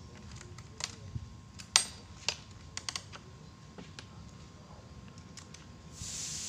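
Scattered clicks, taps and knocks of a hand tool and plastic parts as a new chainsaw is handled and worked on, with the sharpest knock about two seconds in. A steady hiss comes in near the end.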